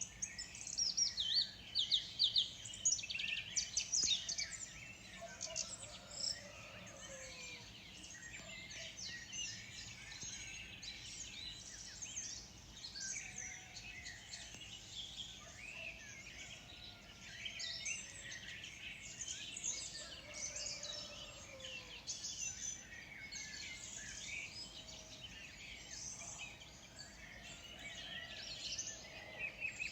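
Many small birds chirping and trilling together in a dense morning chorus, with a louder run of rapid chirps in the first few seconds.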